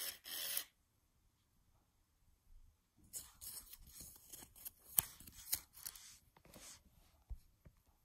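Fingers handling the paper and cardboard hang tags of a plush toy keychain: rustling and scratching that starts about three seconds in and lasts about four seconds, with a few sharp clicks.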